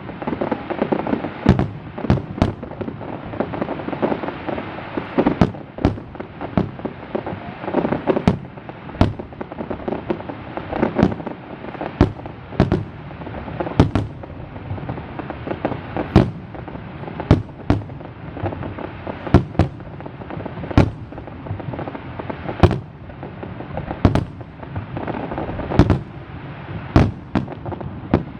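Fireworks display in full swing: a rapid, irregular barrage of shell bursts, one or two sharp bangs a second, over a continuous crackling wash between them.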